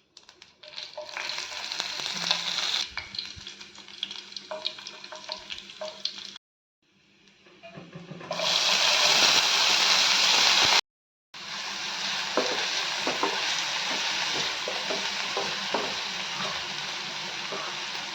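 Food frying in hot oil in a pan, with the clicks and scrapes of a spoon stirring it. The sizzling grows much louder about eight seconds in and then cuts off abruptly.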